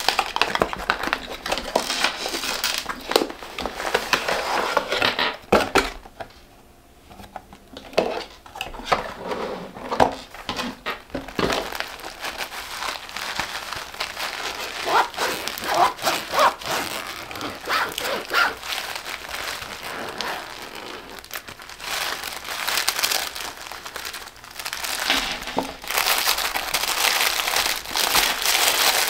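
Paper and cardboard packaging rustling and crinkling as a cosmetics gift box is opened and a fabric pouch and tissue-wrapped items are handled, with many small taps and clicks. It quietens briefly about six seconds in, then the crinkling resumes.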